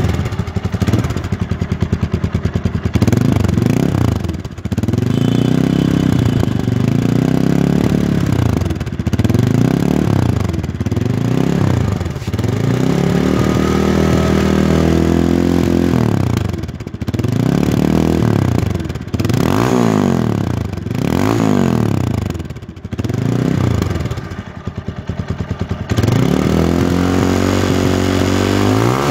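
TVS Apache RTR 180's single-cylinder four-stroke engine breathing through an aftermarket Akrapovic carbon-fibre slip-on silencer, stationary. It idles for about three seconds, then is blipped over and over, each rev rising and falling in pitch, with one longer held rev about halfway through. It settles back to idle near the end.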